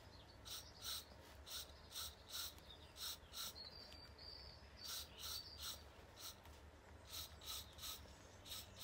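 Aerosol spray-paint can sprayed in short, quick bursts, about two a second, as fine detail strokes are laid on a canvas. The bursts are faint, over a steady low hum.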